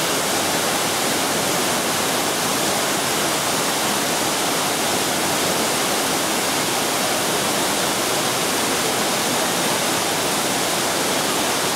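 Waterfall cascades rushing steadily: an even, unbroken hiss of falling water.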